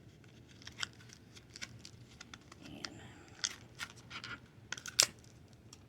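Handling of a plastic-packaged Scentsy wax bar: a run of small, irregular clicks and crinkles, with one sharper click about five seconds in.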